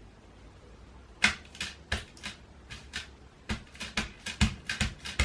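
Irregular short clicking taps from test presses on a home-made foot switch, made of foil contacts duct-taped to the floor. They come sparse at first, from about a second in, then quicken to about three or four a second. The switch is not yet triggering as intended.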